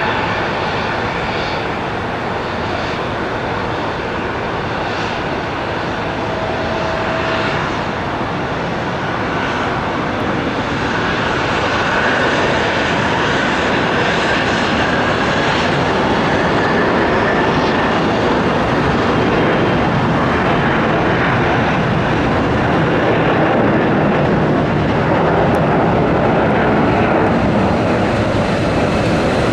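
Embraer ERJ-135LR regional jet's twin Rolls-Royce AE3007 turbofans running at take-off power, a loud, steady jet noise that grows a little louder partway through.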